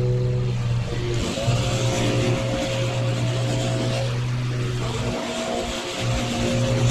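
Small petrol engine of outdoor power equipment running hard and steady, easing off briefly a little past five seconds in.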